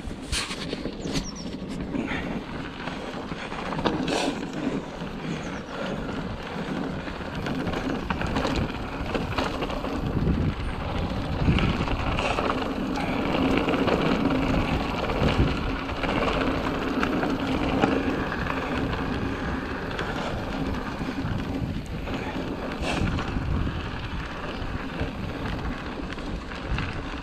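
Orbea Rallon full-suspension mountain bike rolling along a rutted dirt track, with steady tyre and ride noise, wind on the microphone, and a few sharp knocks and rattles from the bike over bumps.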